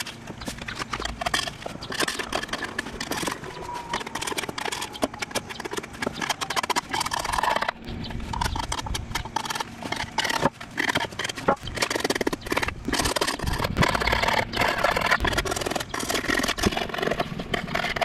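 Gasket scraper scraping an old cork gasket off the flange of a steel oil pan, in quick, irregular scratchy strokes with clicks and knocks of metal on metal.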